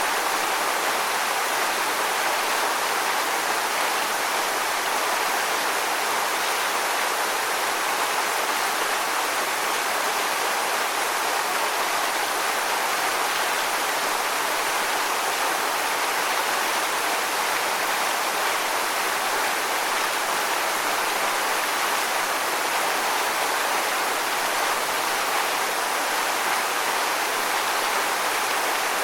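Waterfall: a steady, even rush of falling water, strongest in the middle range with little deep rumble, unchanging throughout.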